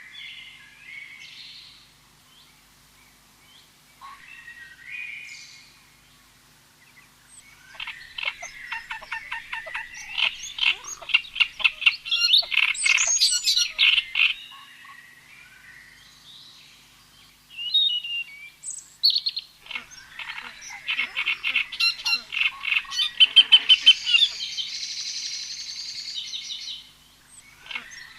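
Animal calls: scattered short chirps, then two long bouts of rapid pulsing trills, the first about eight seconds in and the second about twenty seconds in, each lasting several seconds.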